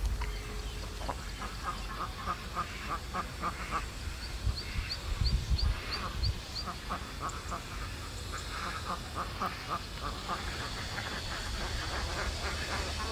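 Repeated animal calls in quick runs of several a second, with a short series of high chirps and a couple of low thumps about halfway through.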